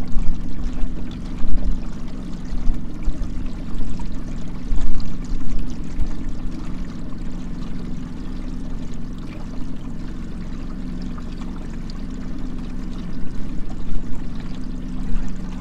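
Small boat's motor running steadily at low speed, a constant low hum, with water rushing and splashing along the hull. Uneven low buffeting is heavier in the first half and settles after about seven seconds.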